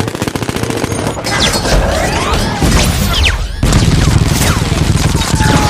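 Layered film destruction sound effects: a rapid crackle of gunfire-like impacts, then metal screeching with rising and falling squeals over crashes. About three and a half seconds in, a heavy crash sets off a deep rumble with more metal creaking and crashing.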